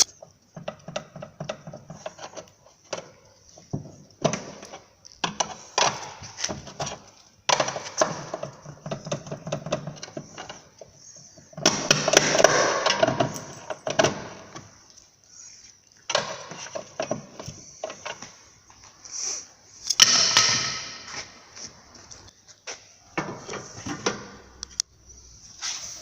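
Hand tools clicking and knocking on a car's front suspension as an upper control arm is worked free, with two louder, longer rattling spells about twelve and twenty seconds in.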